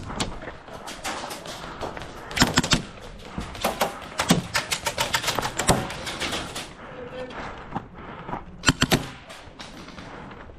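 Airsoft guns firing in several quick strings of rapid shots, a sharp crackle of closely spaced cracks.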